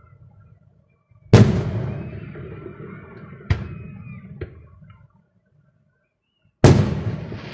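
Aerial firework shells bursting overhead: two loud booms about five seconds apart, each followed by a long rolling echo, with a smaller sharp bang between them.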